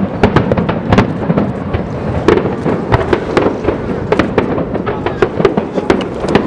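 Fireworks bursting in quick succession: many sharp bangs and crackles, several a second, overlapping over a continuous rumble.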